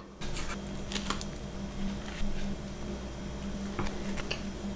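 Light scattered clicks and soft squishy taps of wooden chopsticks picking up and stacking sauce-covered takoyaki balls, over a steady low hum.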